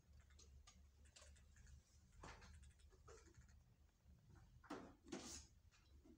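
Near silence: low steady room hum with a few faint rustles and light clicks, the clearest about two seconds in and around five seconds in.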